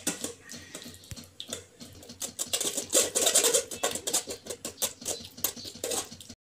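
Steel spoon scraping and pressing thick tamarind-and-date chutney through a stainless-steel mesh strainer, in quick, irregular strokes that cut off suddenly near the end.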